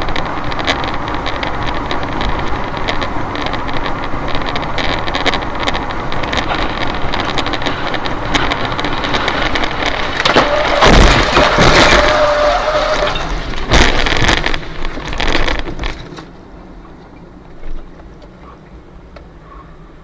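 Dashcam audio from inside a moving car: steady road and engine noise, then about halfway through a run of loud bangs and thuds as wreckage and debris from a crashing airliner sweep across the road and strike the car, with a steady tone held for about two seconds among the first hits. A few seconds later the noise drops sharply to a quiet cabin, with one short thump near the end.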